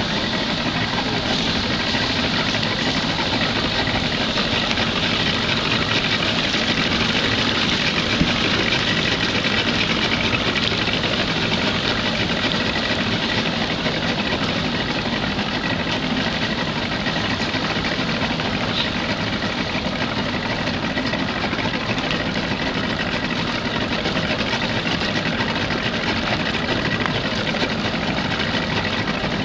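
Steady drone of a running engine over a dense, even hiss, holding level with no sharp pops.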